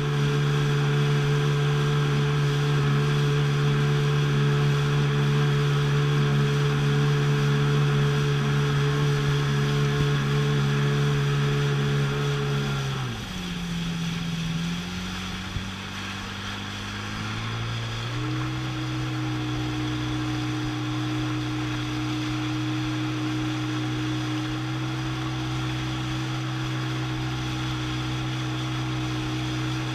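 Sea-Doo jet ski engine running steadily at speed over a hiss of water and wind. About 13 seconds in the engine note drops sharply, then about 18 seconds in it rises again to a steady, slightly lower pitch.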